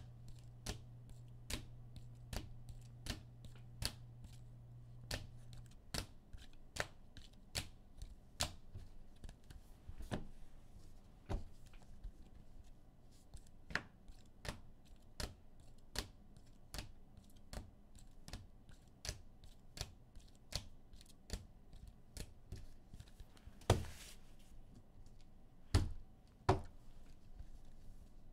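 Trading cards being handled and set down one after another on a table, a run of sharp clicks about every three-quarters of a second, with a few louder knocks near the end. A low hum runs under the first six seconds, then stops.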